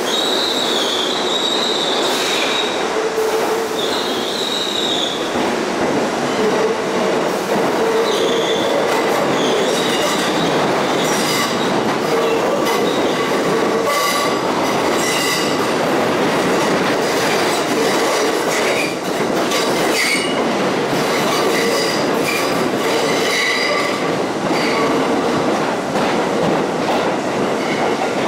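New York City subway train running through a tunnel, heard from inside the car: a steady loud rumble of wheels on rail, with high wheel squeal in the first few seconds and again briefly, and many sharp clicks over rail joints through the second half.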